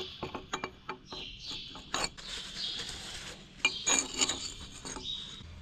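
Steel pivot pin scraping and rubbing in its bore as it is twisted and pushed by hand into a plough headstock joint, with small metallic clicks and knocks, a few sharper ones about two and four seconds in.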